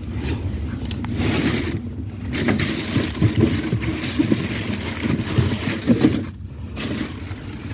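Handling noise: cloth rubbing and scraping over the phone's microphone, with irregular crackles and small knocks as it is carried against the body.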